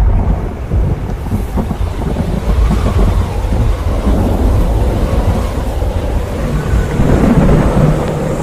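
Storm noise: strong wind and heavy rain, with gusts buffeting the microphone into a loud, continuous low rumble.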